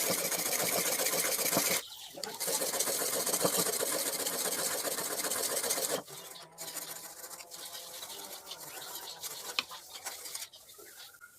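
A power tool running loudly, with a brief dip about two seconds in. It cuts off about six seconds in, followed by quieter clicks and handling of wood.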